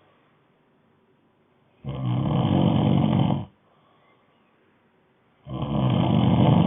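Snoring: regular snores about three and a half seconds apart, each lasting about a second and a half, with quiet breathing gaps between. One snore is heard fully, and the next starts near the end.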